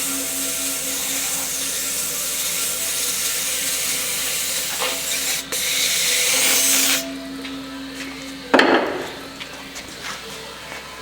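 A power tool running steadily while cleaning the truck wheel's rim, cutting off suddenly about seven seconds in, with one short loud burst a little over a second later.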